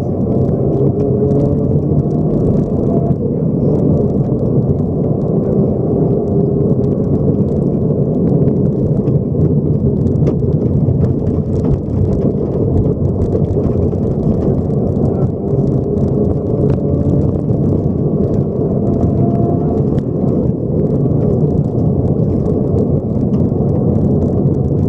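Subaru rally car heard from inside the cabin at speed on a gravel stage. The engine runs under load as the car accelerates, its pitch climbing in a few sweeps, over a constant roar of tyres on gravel with stones ticking against the underbody.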